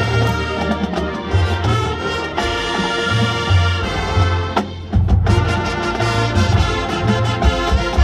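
High school marching band playing its field show: brass over drums and a deep bass line. About four and a half seconds in the sound thins briefly, then the full band comes back in louder at about five seconds.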